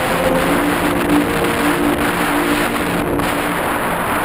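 Model airplane's motor and propeller heard from its onboard camera in flight, a steady hum over loud rushing wind on the microphone; the hum fades out about three and a half seconds in.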